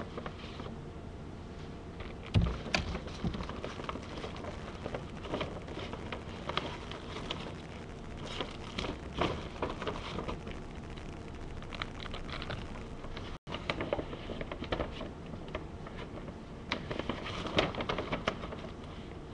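Plastic packaging crinkling and rustling as bagged squishy toys are handled, a steady run of irregular crackles and clicks.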